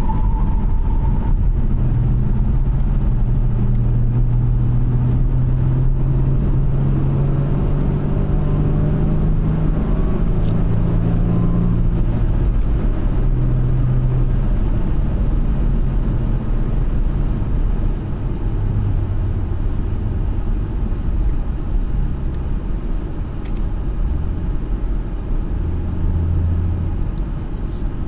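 2013 Ford Mustang V6 heard from inside the cabin, its engine running steadily with road and tyre noise. The engine note climbs slowly for about ten seconds, then drops and settles lower about halfway through.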